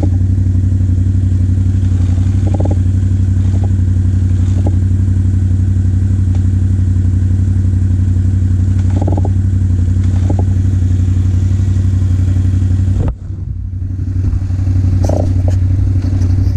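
ATV engine running steadily at low trail speed, heard close up from the quad itself, with occasional knocks and rattles of the machine over the rough trail. About three-quarters of the way through, the engine note drops off suddenly as the throttle is closed, then builds back up.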